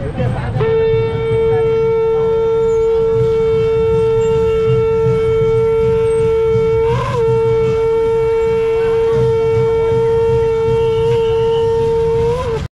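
Conch shell (shankha) blown in a long, steady, loud note; it wavers and catches briefly about seven seconds in, as for a quick breath, then carries on to near the end.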